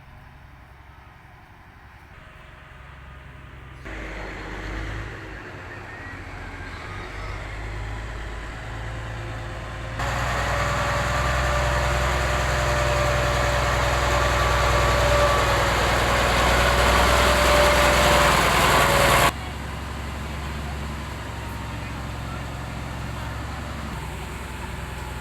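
Heavy vehicle engines running steadily, with a steady whine over the engine noise. The level jumps up twice and then drops suddenly about three-quarters of the way through.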